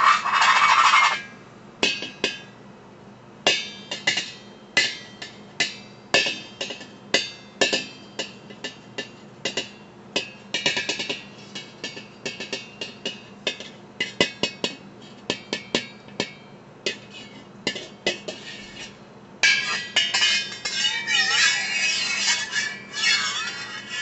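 A wire whisk played on a pot lid as a percussion instrument. It opens with a dense scraping rattle, then gives way to separate taps and clinks, irregular and sometimes in quick runs. Near the end it turns to a continuous scraping with a wavering whine.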